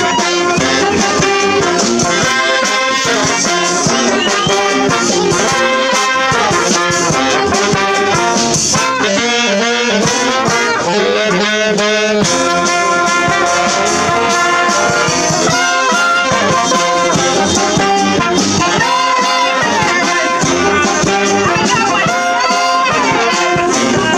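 Brass band playing a tune live, massed horns over percussion, loud and unbroken.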